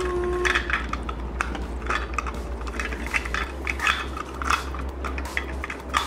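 Small stones and gravel clicking and clattering against plastic toy trucks, a run of irregular light knocks and rattles.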